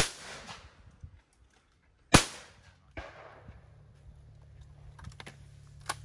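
Two shotgun shots about two seconds apart, a pair fired at clay targets, each with a short ringing tail. A fainter crack follows about a second after the second shot, and there is a sharp click near the end.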